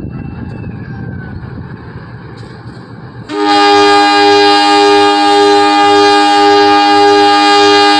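A low rumble, then a little over three seconds in a locomotive air horn starts abruptly and holds one long, loud, steady chord: the long horn blast of the Mutiara Timur train.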